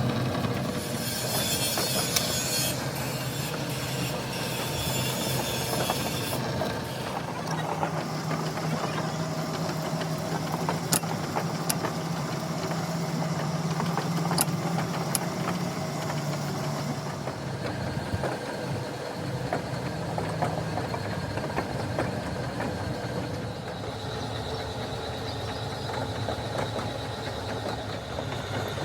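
Steady running machinery with a low hum. A harsh high noise sounds for the first several seconds, and a few sharp metallic clicks come near the middle.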